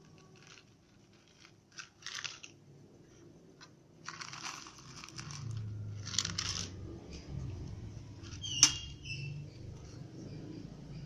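Dry cat kibble rattling in a plastic bottle and spilling onto a wooden block in several short bursts, with a cat crunching on the kibble. A single sharp click a little past halfway is the loudest sound.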